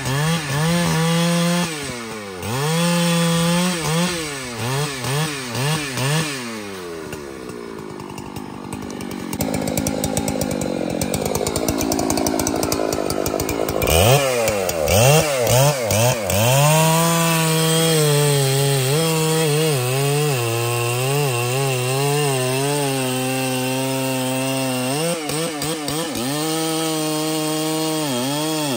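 Large Husqvarna two-stroke chainsaw cutting trembesi wood. The engine revs up and dips again and again under load, drops to a slow, lower running for several seconds about a third of the way in, then revs back up and holds a steady high speed.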